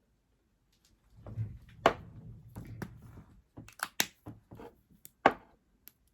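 Cosmetic packaging being handled and opened, with rustling and several sharp clicks.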